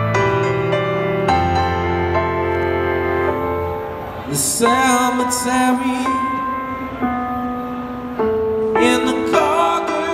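Live band music: held keyboard chords, then a male lead voice singing long, wavering notes over them from about four and a half seconds in.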